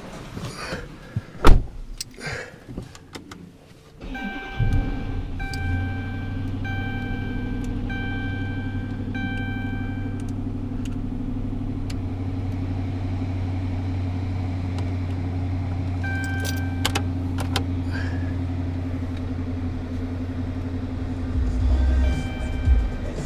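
A few sharp knocks, then a 2013 Dodge Charger's HEMI V8 starts about four seconds in and settles into a steady idle. A dashboard warning chime dings repeatedly at first and again briefly later. The engine sound swells a little near the end.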